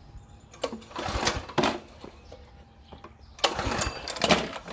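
Two pulls on the recoil starter cord of a Power Stroke pressure washer's small gas engine, each a brief whirring rasp of the engine being cranked over.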